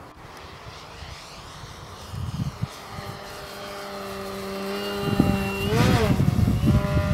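Electric RC aerobatic plane's brushless outrunner motor spinning a 15x8 APC propeller: a steady whine that grows louder as the plane comes in low. Near the end its pitch briefly rises and falls, with wind rumbling on the microphone.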